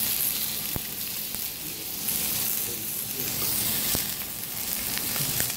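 Beef steak searing in hot oil in a frying pan: a steady sizzle with scattered crackles and pops, a couple of sharper pops about a second in and about four seconds in.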